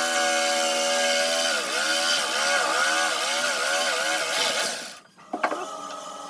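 Power tool motor running on wood, its pitch sagging and recovering about twice a second as it is worked under load, then switched off about five seconds in. A click follows, then a quieter steady motor hum.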